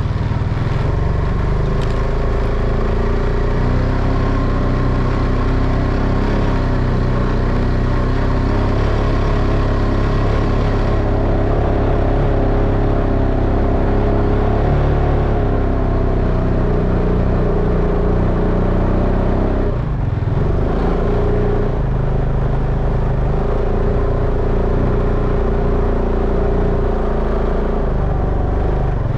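2004 Honda Rancher ATV's single-cylinder four-stroke engine running under way, its pitch rising and falling with the throttle. The engine note dips briefly about two-thirds of the way through, then picks up again.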